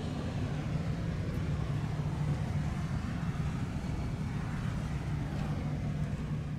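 A steady low hum over an even background noise, unchanging throughout.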